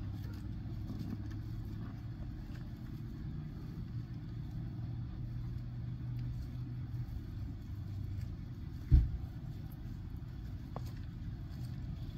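Steady low motor hum, with one sharp thump about nine seconds in.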